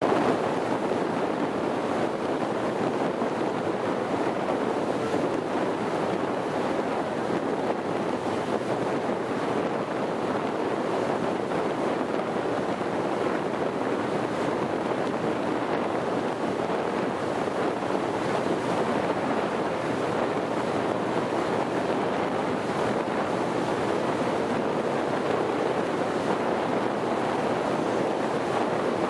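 Steady rushing noise of wind and waves, even throughout, with no distinct engine tone.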